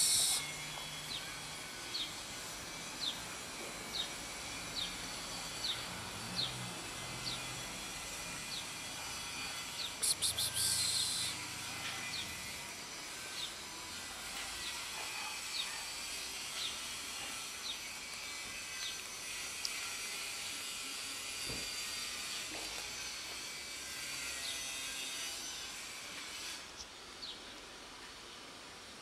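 Outdoor ambience of insects: a steady high hiss with a short high chirp repeating about once a second, and a loud buzzing burst lasting about a second, around ten seconds in.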